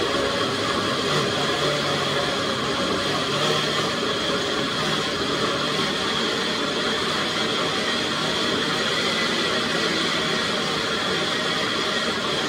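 Blender motor running steadily at one speed, pureeing a liquid sauce.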